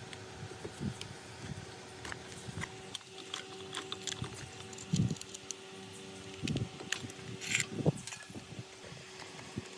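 Light clicks, scrapes and knocks as a screwdriver and gloved hands work loose and pull the wires from an old electric motor's terminal box. The heaviest knocks come about halfway through and again a little later. A faint steady hum runs underneath.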